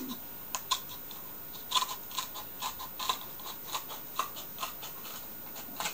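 Scissors snipping through duct-taped cardboard: a string of short, sharp snips, unevenly spaced, about fifteen in all.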